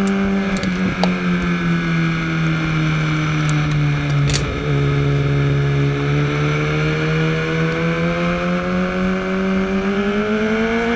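BMW HP4's 999 cc inline-four engine running onboard at part throttle in third gear: its pitch sinks as the bike slows through a corner, then rises steadily as the rider rolls back on the throttle. A few sharp clicks near the start and one about four seconds in.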